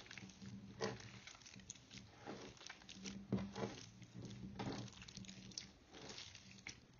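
Green slime with orange gel beads mixed in, squeezed and kneaded by hand: irregular wet squishes and small sticky clicks, the loudest about a second in and again a little past the middle.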